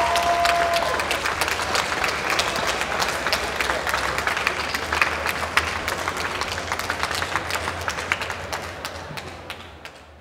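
Large audience applauding, a dense patter of many hands that gradually dies away and fades out near the end.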